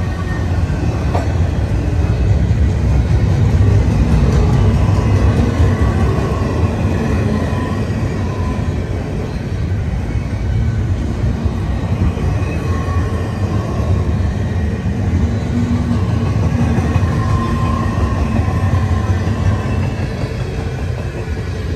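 Double-stack container train of well cars rolling steadily past: a continuous low rumble of steel wheels on the rails.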